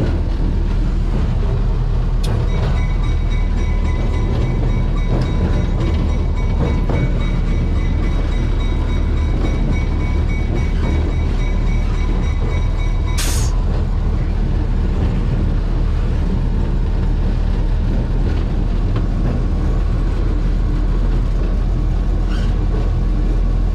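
Air-operated bell on a 1949 General Electric diesel-electric locomotive ringing steadily from about two seconds in, over the low running of its Cummins HBI-600 six-cylinder diesel. About thirteen seconds in the bell stops with a short, sharp hiss of air.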